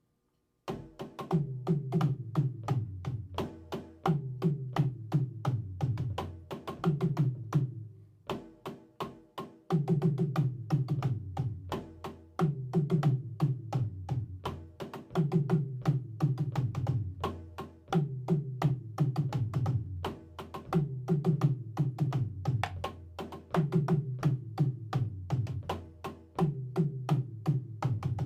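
Drum kit played in a steady groove, with rapid, evenly spaced cymbal or hi-hat strokes over a low pattern that repeats about every three seconds. The beat drops back briefly about eight seconds in, then picks up again.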